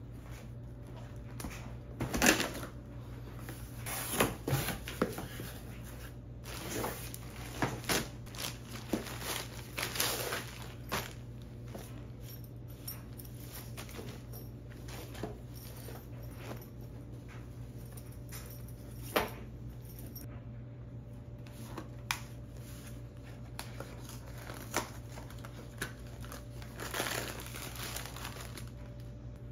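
Packaging being handled by hand while unpacking a cardboard box: crinkling and rustling of wrapping and a canvas bag in short irregular bursts, busiest in the first ten seconds, with another flurry near the end.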